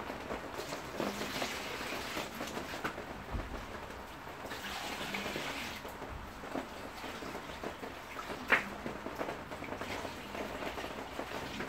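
Liquid poured from a plastic bucket onto the soil of potted plants, splashing and trickling, stronger in a couple of stretches. One sharp knock about eight and a half seconds in.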